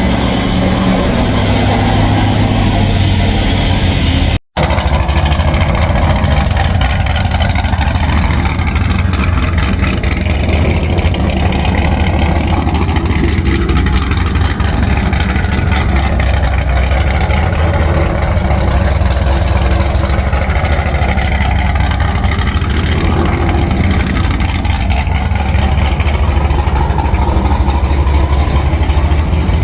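Pickup truck engine running through freshly installed aftermarket headers and a full mandrel-bent stainless exhaust: a steady deep exhaust rumble. The sound drops out for an instant about four and a half seconds in.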